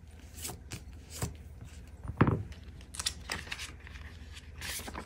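A clear plastic cash pocket in a ring binder being handled, crinkling and rustling, with scattered small clicks and a single loud thump about two seconds in.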